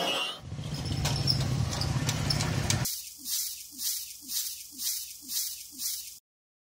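Water poured from a large plastic bottle onto dry ground. A steady splashing hiss gives way to regular glugs about twice a second, and the sound cuts off suddenly.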